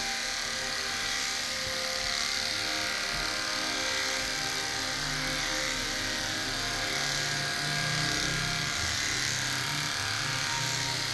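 Electric pet clippers running steadily with an even hum as they shave through a dog's heavily matted coat.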